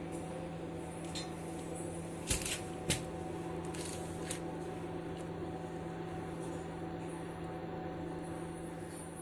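A steady low electrical hum, with two short knocks or clinks a little over two seconds in and half a second apart.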